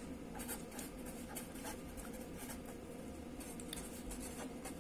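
Marker pen writing on paper: a faint, steady run of short, scratchy strokes.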